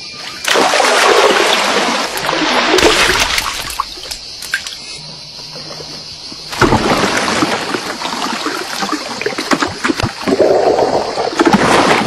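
Water splashing and sloshing in two loud spells, one starting about half a second in and one about six and a half seconds in, as an archerfish spits jets of water and its insect prey drops into the water.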